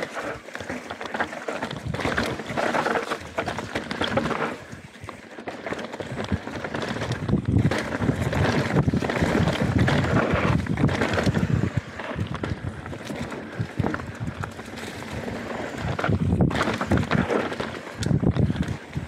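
Canyon Spectral 125 mountain bike descending a dirt trail: tyres rolling over the rough ground, with a dense clatter of knocks and rattles from the bike and wind rushing over the microphone. The noise surges and eases with the terrain, dipping briefly about five seconds in and swelling again near the end.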